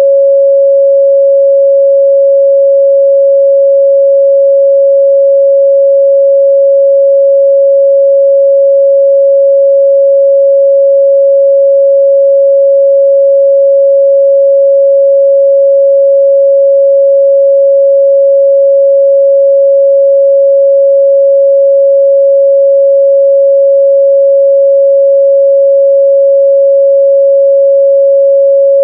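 A pure 553 Hz sine-wave test tone, one steady pitch held unbroken at a constant loud level.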